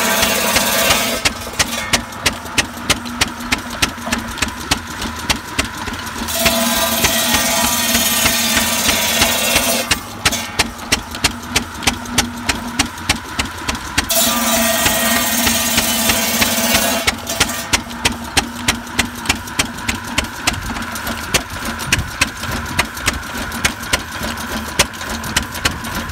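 Large belt-driven circular buzz saw cutting through logs: a cut ends about a second in and two more follow, each a steady ringing rasp lasting three to four seconds. Between the cuts the 6 hp Fairbanks Morse engine driving the saw pops steadily, about two to three beats a second.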